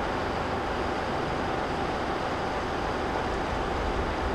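A train of Pullman coaches rolling slowly along a station platform, a steady low rumble that grows a little louder near the end.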